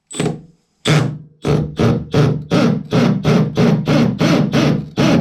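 Hammer drill with a 1/2-inch Diablo bit starting a hole through tile, run in two short bursts and then in quick even pulses, about four a second, to get the bit going without cracking the tile.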